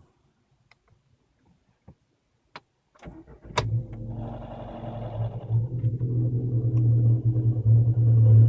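Volkswagen Scirocco 1.4 TSI (122 hp) turbocharged four-cylinder petrol engine cold-started after a few faint clicks. It cranks briefly about three seconds in and catches, then clanks for a second or two right after starting before settling into a steady idle that grows louder. The start-up clanking has persisted even after the timing system was replaced.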